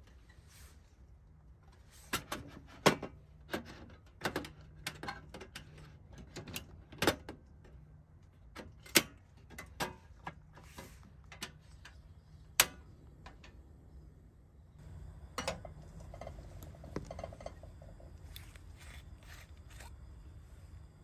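A Campingaz portable gas stove being handled and set up: a run of sharp clicks and metal clatter from its pot supports and cartridge compartment. About two-thirds of the way through, a steadier faint hiss sets in with a few more clicks, as the burner is lit and a kettle set on it.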